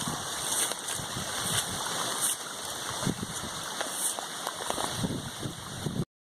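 Stormwater runoff running and splashing: a steady rush of water with many small irregular gurgles. It cuts off abruptly near the end.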